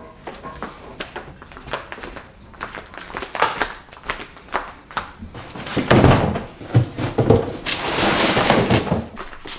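Light scattered knocks, then heavier thumps about six seconds in and a loud scraping rush near the end as a large cardboard box is pushed across a concrete floor.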